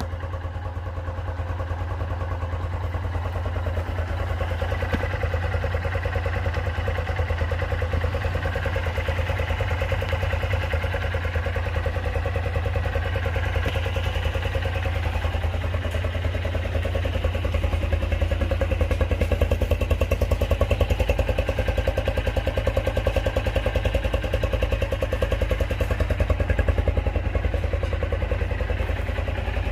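Carabela Router 200 motorcycle engine running steadily, a little louder for a few seconds past the middle.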